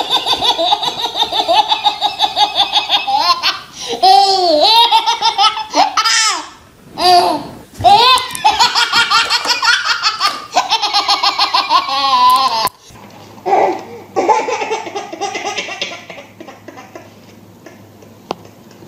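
A baby's belly laughter: loud, rapid pulses of laughing, run together in long peals with short breaths between. About thirteen seconds in it breaks off abruptly, and quieter baby sounds follow over a low hum.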